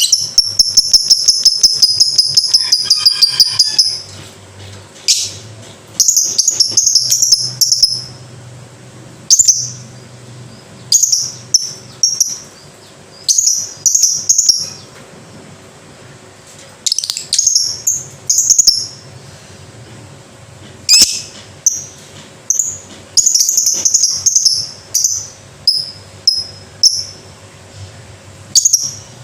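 Lovebird chattering. It opens with a loud, fast rattling trill of shrill chirps lasting about four seconds, the drawn-out 'ngekek' song, then gives short bursts of high chirps every second or two.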